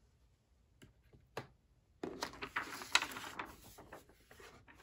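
Two light clicks, then from about two seconds in the rustling of a thin sheet of paper being lifted off a packed accessory tray and handled.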